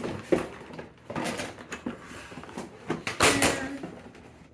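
Cardboard box being opened and its packaging handled: irregular scrapes, rustles and knocks, loudest about three seconds in.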